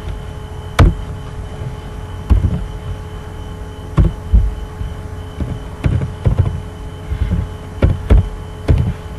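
Computer keyboard typing: about ten keystrokes at an uneven pace, each a short low knock, over a steady electrical hum from the recording setup.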